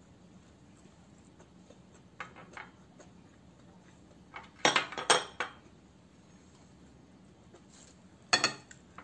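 Plates and a bowl knocking and clinking against a glass tabletop as they are moved: a few soft clicks about two seconds in, a loud cluster of knocks around the middle, and one more near the end.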